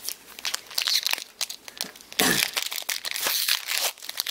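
Foil wrapper of a Pokémon trading-card booster pack crinkling and being torn open, a dense run of sharp crackles.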